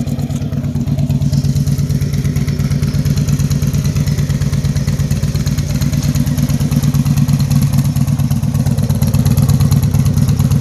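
Harley-Davidson touring motorcycle's V-twin, fitted with D&D Billet Cat mufflers and an Andrews 460 cam, idling steadily about two minutes into a cold start. The loud exhaust note is even throughout, with no revving.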